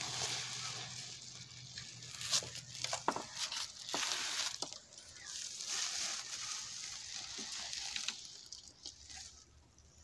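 Faint rustling and crinkling of woven plastic feed sacks being handled, with a few light clicks and knocks.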